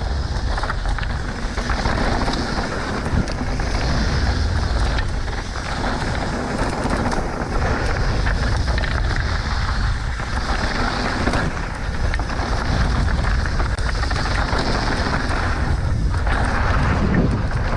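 A mountain bike riding fast down a dirt bike-park trail: a steady, loud rush of wind rumble on the microphone mixed with tyre and trail noise.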